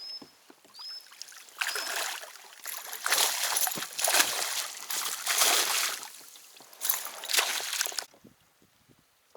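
Water splashing in several loud bursts, typical of a hooked pike thrashing at the surface beside the boat, stopping abruptly near the end. A few short high chirps sound in the first two seconds.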